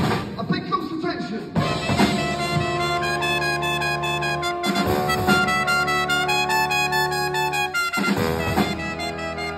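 Brass band of trumpets, trombone, saxophones, sousaphone and drum kit playing live, holding long chords over a low bass line, with the chord changing about every three seconds.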